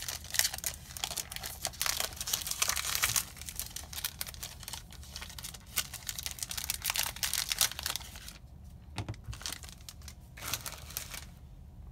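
Foil wrapper of a Magic: The Gathering booster pack crinkling and tearing as it is ripped open and the cards pulled out. From about eight seconds in it goes quieter, with a few light taps of the cards being handled.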